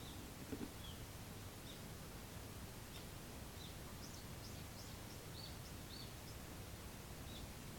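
Small birds chirping: short high notes, a few a second in places, over a steady low background hum, with one soft thump about half a second in.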